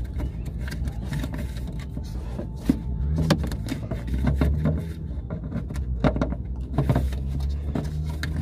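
Irregular light clicks, knocks and scrapes of hands fitting the plastic rear access cover onto a BMW headlight housing, over a steady low rumble.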